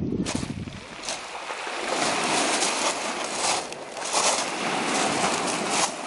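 Footsteps crunching on a beach of smooth round pebbles, several steps at about one a second, over the steady rushing hiss of surf.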